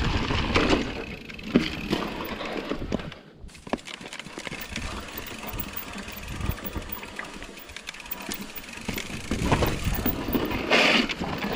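Mountain bike rolling down a rocky dirt trail: tyres crunching over rock and gravel, with frequent rattles and knocks from the bike. It goes quieter for about a second a few seconds in, then grows louder again toward the end.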